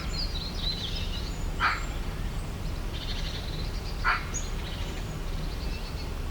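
Birds chirping and trilling, with two short sharp calls about two and a half seconds apart, over a steady low rumble.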